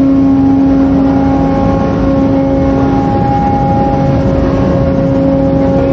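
Steady machinery hum aboard a ship at anchor stations: one strong low tone with fainter higher tones above it, over a rough low rumble.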